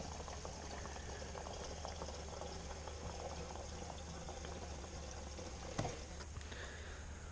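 Gasoline pouring steadily from a plastic gas can's spout into a mini bike's fuel tank.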